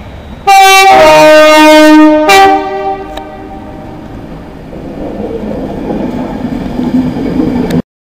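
Class 390 Pendolino electric train's horn sounded very loud as a 'three tone': a short high note, a longer low note, then a short high note again. Afterwards the rumble of the departing train builds as it gathers speed.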